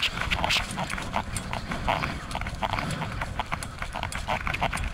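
A person running through wet marsh grass: quick, rhythmic footfalls, several a second, with the grass swishing against the legs.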